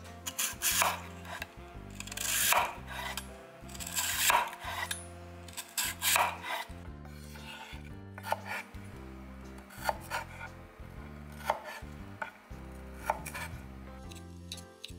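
Kitchen knife slicing a peeled lotus root on a bamboo cutting board. Several long drawn cuts come in the first few seconds, then single short cuts about every second and a half, over soft background music.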